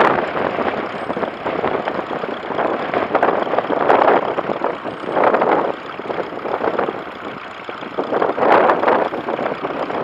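Grey Ferguson 'Fergie' tractor engine running steadily under load while pulling a plough, with strong wind gusting on the microphone so the sound swells and fades irregularly.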